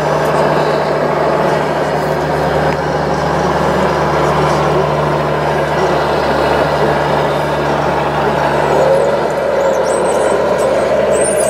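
Diesel truck engine sound played by the sound modules of radio-controlled scale trucks, running steadily, with a short rise and fall in pitch about nine seconds in.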